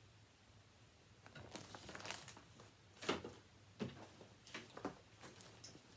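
Crinkling and rustling of paper and packaging as a cross-stitch chart and fabric project bag are handled on a table: a string of irregular crinkles starting about a second in.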